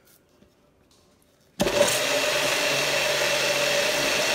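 Magic Bullet blender switching on about a second and a half in and running steadily as it blends a thick cream cheese and steak sauce mix.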